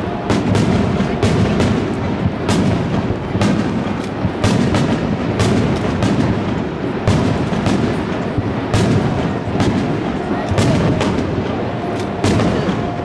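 Fireworks display: aerial shells bursting one after another, with a sharp bang every second or so over a continuous low rumble of launches and echoing reports.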